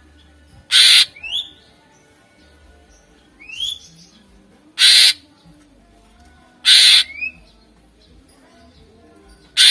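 Cucak ijo (green leafbird) song: four loud, harsh rasping calls of about a third of a second each, spaced roughly two seconds apart, with short rising whistled notes between them.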